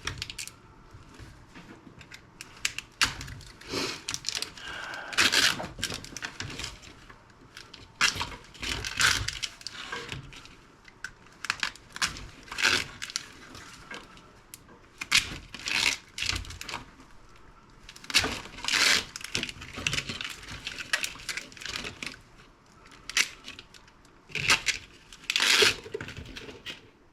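Plastic parts and wiring being pried and pulled apart by hand: irregular clicks, snaps and scrapes of hard plastic.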